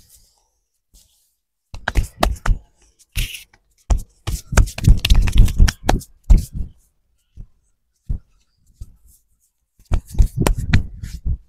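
Massage by hand: quick flurries of slapping and chopping strokes on the young man's back, shoulders and head. There is a short burst about two seconds in, a long dense run in the middle, and another burst near the end.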